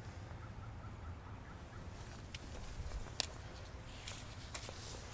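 Quiet outdoor background with a low rumble, a faint repeated chirping in the first second or so, and a few light, sharp clicks.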